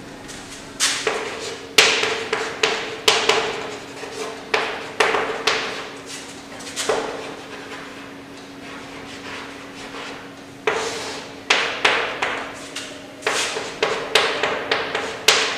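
Chalk writing on a chalkboard: sharp taps and short scratchy strokes in two runs, with a pause of a few seconds between them, the second run starting about ten and a half seconds in.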